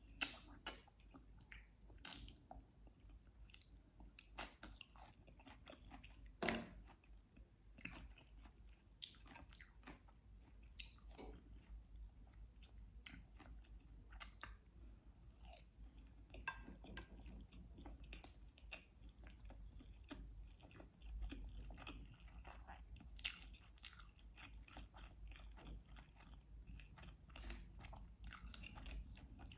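Close-miked ASMR eating: soft chewing and biting with scattered sharp mouth clicks, a few of them louder near the start and about six seconds in.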